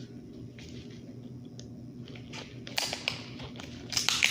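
Close-up eating sounds: chewing and mouth noises over seafood, with a few short sharp crackles and clicks in the second half. A steady low hum runs underneath.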